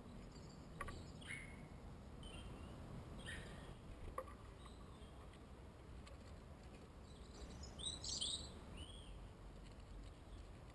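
Blue tits calling with short, high chirps, scattered through the first half, with a quick run of higher, curving notes about eight seconds in. A small sharp tick sounds about four seconds in, over a faint steady low rumble.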